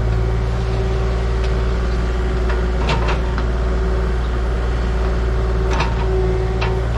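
Engine of a piece of heavy equipment running steadily at a constant speed, with a few short knocks about three seconds in and again near six seconds.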